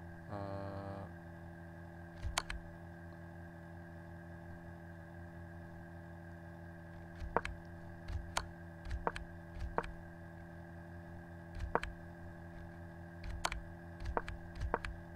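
About nine sharp computer input clicks, single and irregularly spaced, stepping through a chess game's moves one at a time, over a steady low electrical hum.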